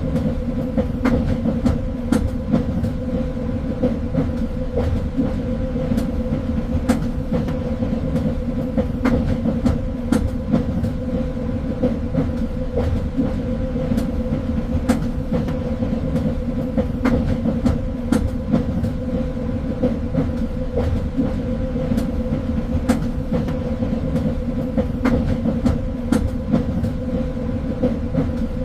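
Train rolling steadily along the track: a constant low rumble with a steady hum, punctuated by frequent sharp clicks of the wheels on the rails.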